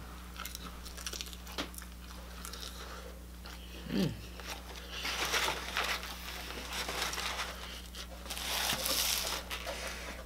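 Chewing a bite of crunchy chicken egg roll, with small crunching clicks, then styrofoam takeout containers rubbed and shifted, rustling and creaking loudest about five and nine seconds in. A short falling hum about four seconds in, over a steady low electrical hum.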